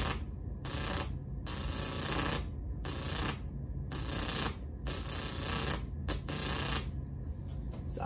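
High-voltage sparks crackling from a microwave oven transformer's voltage-doubler capacitor output as it is shorted, coming in repeated pulses of about half a second to a second each, over a steady low hum.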